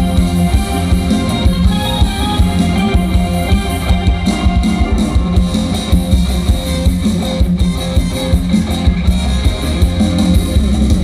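Loud Isan band music played through a large sound system: a plucked string lead over a drum kit, with a heavy bass beat.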